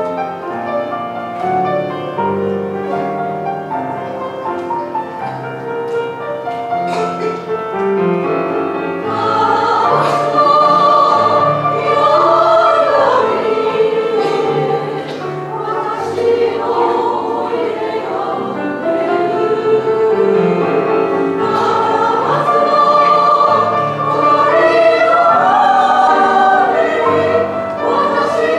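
Women's choir singing in parts with piano accompaniment, growing louder about nine seconds in.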